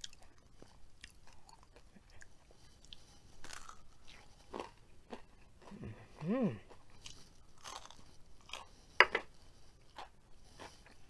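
Crisp homemade hash browns being bitten and chewed close to the microphone, a run of sharp crunches with the loudest about nine seconds in. A short hummed voice sound, rising and falling in pitch, comes about six seconds in.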